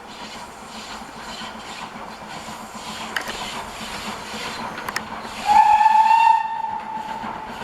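Steam train running, then a single short steam locomotive whistle blast, about a second long, a bit over halfway through.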